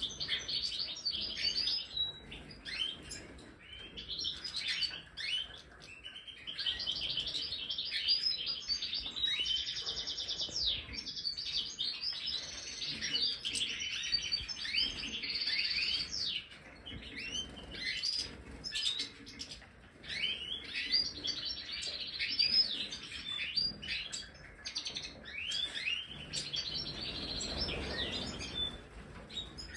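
A flock of European goldfinches (Major race) chirping and twittering, many calls overlapping, with brief lulls now and then.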